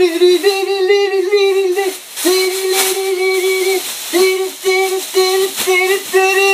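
A high singing voice holding a string of notes, mostly on one pitch, with short breaks between them and a few slides.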